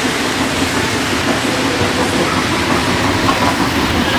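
O-gauge three-rail model train running past close by: a steady rumble of its wheels on the metal track.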